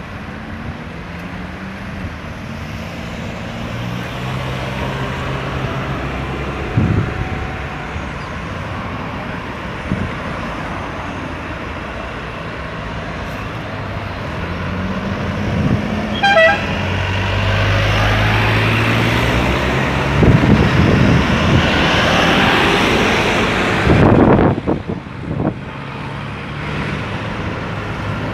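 Road traffic with vehicles driving past and engines running, a brief horn toot about halfway through, and louder traffic passing close in the last third, dropping away suddenly near the end.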